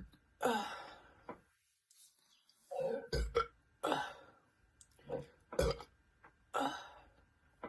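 A person burping repeatedly: one long burp about half a second in, then a run of shorter burps.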